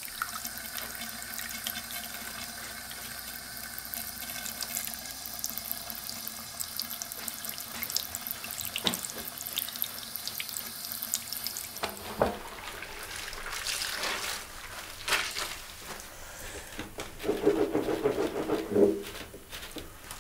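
Water in household washing: a tap running into a steel kitchen sink where leafy greens soak, then clothes being hand-scrubbed and sloshed in a basin of soapy water, with louder wet rubbing and splashing near the end.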